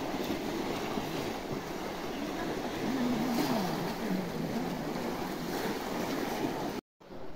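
Busy din of a large crowd wading and splashing through shallow pond water, with many distant shouting voices mixed in. It cuts out suddenly near the end.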